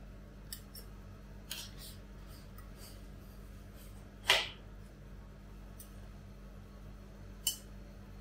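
Steel spatulas scraping and tapping on the stainless cold plate of a rolled ice cream machine while banana ice cream is rolled up and lifted off: scattered sharp clicks and short scrapes, the loudest about four seconds in, over a steady low hum.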